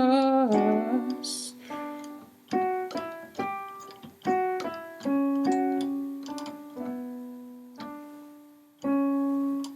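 Background music: a piano playing slow single notes and chords, each one struck and then dying away.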